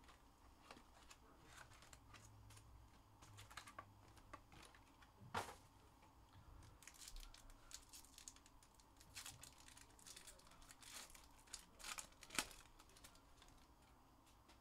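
Faint crinkling and tearing of an Upper Deck SPX hockey card pack's foil wrapper and rustling of the cardboard box flaps as they are opened, with scattered light clicks; a louder snap comes about five seconds in and another near the end.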